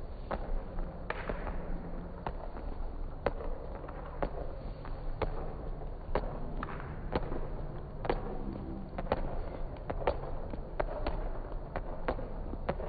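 Sharp, irregular footfalls of athletes sprinting on an indoor sports-hall floor, each slap ringing in the hall's echo, over a steady low hum.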